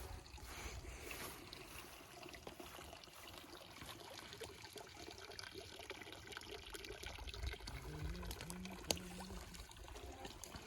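Water trickling, with scattered light clicks; a faint voice comes in near the end.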